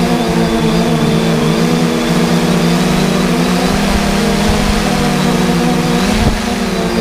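Diesel engine of farm harvest machinery running steadily under load, with a brief knock and a short dip in the engine note about six seconds in.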